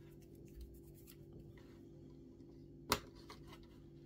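Faint handling sounds as a fan wire is pressed into the plastic cable channels of an Xbox Series X chassis with a plastic spudger: light scattered ticks and one sharp plastic click about three seconds in, over a low steady hum.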